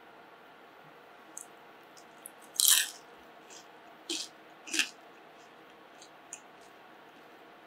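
Crisp cornstarch-coated deep-fried potato crunching in three short crackling bursts, the loudest about two and a half seconds in, with a few faint clicks between; the sound of a crust that has stayed crisp.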